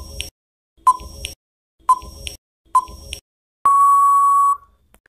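Quiz countdown-timer sound effect: four short ticks about a second apart, then one steady electronic beep lasting about a second near the end, signalling that time is up.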